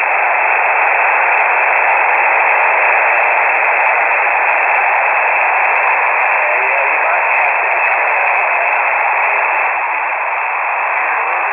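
Shortwave amateur-radio single-sideband audio from a KiwiSDR web receiver: a steady, loud hiss of static, narrow like a radio's voice band, with faint traces of a voice under the noise.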